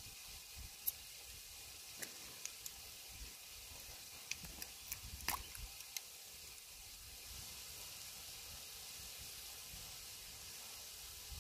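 Faint sizzling of minced meat cooking in a cast iron pot over a wood fire, with a few scattered light clicks, the sharpest about five seconds in.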